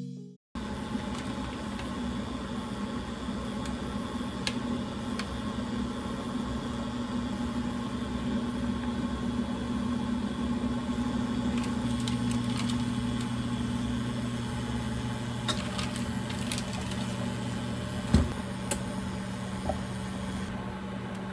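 Steady hum of a running machine or appliance, with a few light clicks and a louder knock about eighteen seconds in.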